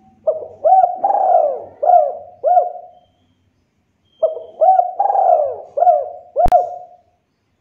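Spotted dove cooing in two phrases, each a run of several husky coo notes, with the second phrase starting about four seconds in. A sharp click sounds during the second phrase.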